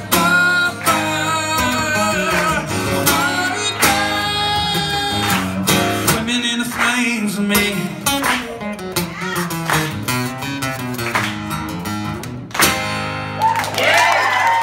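Steel-string acoustic guitar strummed while a man sings the closing line of the song, ending on a hard final strum near the end. The audience starts to cheer right after it.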